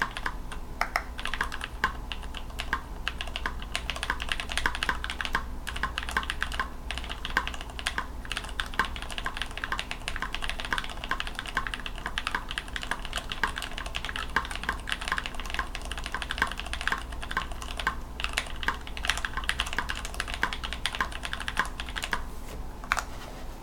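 Continuous fast typing on a mechanical keyboard whose switches are Kailh Burgundy stems in retooled Cherry housings: a dense run of keystroke clacks with a few short pauses. A steady low hum sits underneath.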